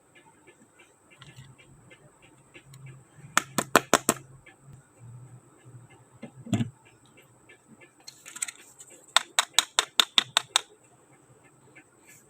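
Small hard plastic toy pieces being handled and set down: a quick run of about five sharp clicks, a single knock midway, a brief scrape, then a run of about nine rapid clicks over light steady ticking.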